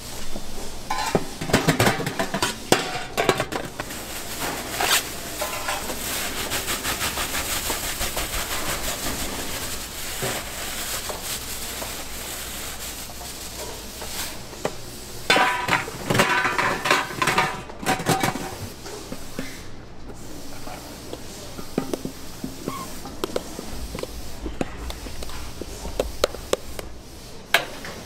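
Plastic bags rustling as ingredients are tipped out into stainless steel pans, with knocks and clatter of the metal pans being handled.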